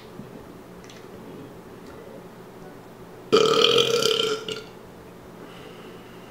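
A man's deliberate, loud burp, forced on purpose as a 'biggest burp' attempt. It starts abruptly about three seconds in and lasts just over a second.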